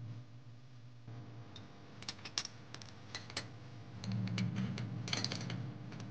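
Irregular metallic clicks and clinks of a hand tool working the T50 Torx bolts on the front driveshaft's transfer-case flange, over a steady low hum.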